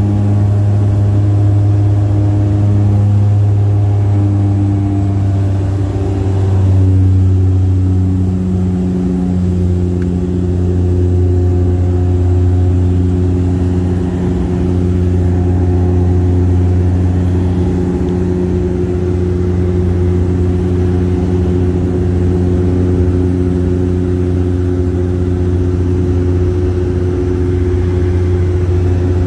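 Passenger plane's engines droning steadily, heard inside the cabin during the climb after takeoff. A strong low hum carries a few steady tones that shift slightly in pitch about seven seconds in.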